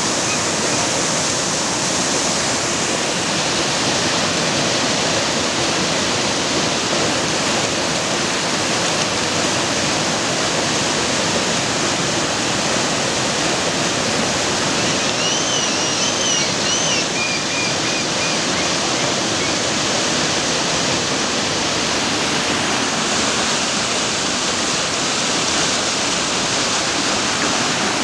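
Whitewater river rapids rushing steadily, a dense, unbroken wash of water noise.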